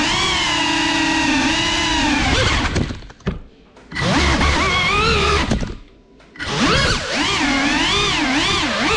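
Whine of a GEPRC CineLog35 cinewhoop's motors and ducted props, pitch rising and falling with the throttle. The sound cuts out twice, about three and six seconds in, with a short knock at the first cut as the drone crashes to the floor, then spools back up and flies on.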